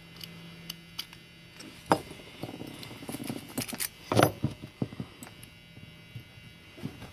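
Small metal parts of a Keil lock cylinder clicking and clinking as the lock is reassembled by hand, with sharper clicks about two seconds and four seconds in.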